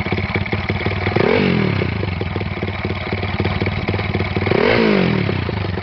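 Takegawa 138cc single-cylinder four-stroke minibike engine with an open dry clutch, running on a new exhaust: a steady idle with two short throttle blips that rise and fall back, one about a second in and one near the end.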